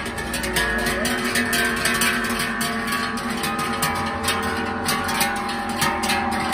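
Many large cowbells on a passing herd of cows clanging irregularly as the cows walk, their rings overlapping; the sound grows louder about half a second in as the cows come close.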